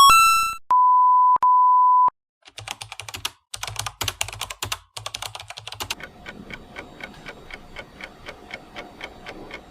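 Two loud, steady 1 kHz beeps of the censor-bleep kind, each under a second long. Then computer keyboard typing: short bursts of key clicks at first, and from about six seconds in a faster, even run of keystrokes.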